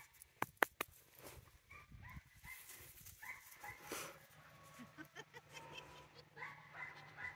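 Faint short animal calls repeating at intervals in the background, with two sharp knocks less than a second in.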